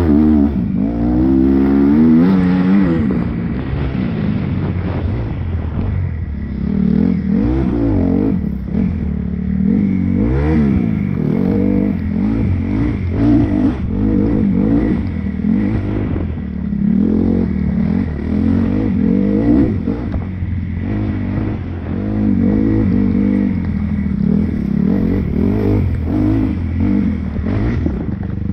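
Dirt bike engine under hard riding, its revs rising and falling again and again as the throttle opens and closes, with knocks and rattles from the bike over rough ground.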